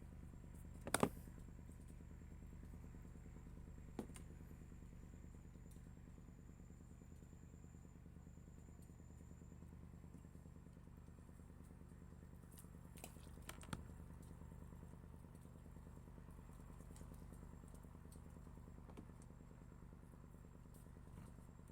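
Faint, steady hum of an engine running at an even speed, with a few sharp clicks or knocks, the loudest about a second in.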